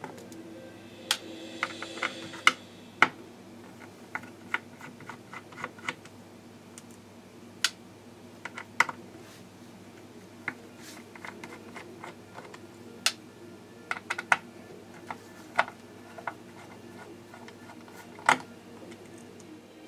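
Irregular small clicks and taps of a screwdriver working the screws out of the back of a GTX 470 graphics card's circuit board, with screws being picked out by hand.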